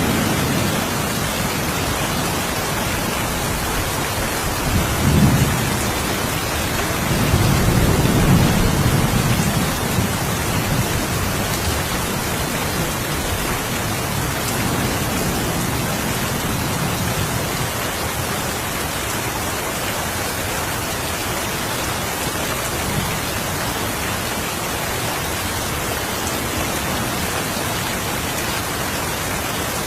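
Steady rain falling, with low rolls of thunder rumbling about five seconds in and again for a few seconds from about seven seconds, then fainter rumbles under the rain.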